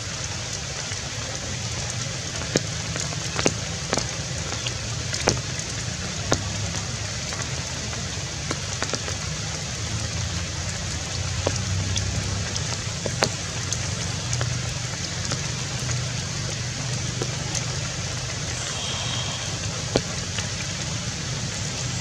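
Steady hiss of rain falling on foliage, with scattered sharp ticks of drops at irregular moments and a brief high chirp near the end.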